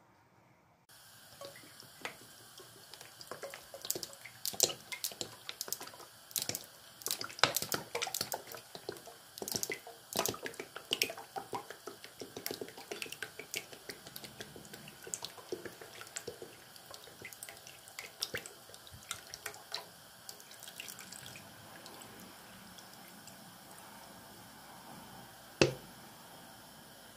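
Deep-frying oil heating in a frying pan, crackling with irregular sharp pops of spitting oil over a faint hiss. The pops come thick and fast for the first twenty seconds, then thin out, with one loud single pop near the end.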